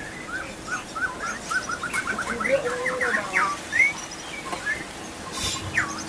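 White-rumped shama (murai batu) song: a run of short rising whistled notes that speeds into a rapid series about two seconds in, then louder sweeping whistles and a falling note near the end.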